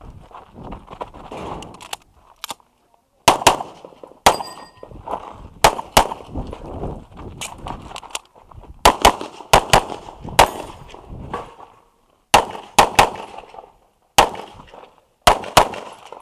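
Pistol shots fired in pairs and short strings, about fifteen in all, beginning about three seconds in after some shuffling movement; a steel target rings briefly after one of the early hits.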